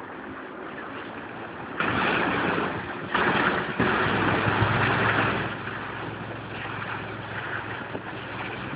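Motorboat under way: a steady low engine hum under a rush of wind and water, which grows louder about two seconds in and eases off after about five seconds.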